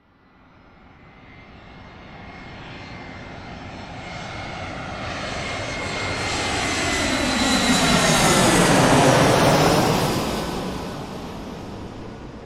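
Airplane flying over: the engine sound fades in from nothing, grows louder to a peak about nine seconds in as it passes, its pitch dropping, then fades away as it recedes.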